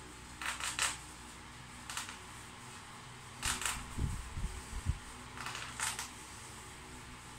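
Rustling of a child's winter jacket as hands fumble at the bottom of its zipper, in several short bursts, with a few dull thumps about halfway through.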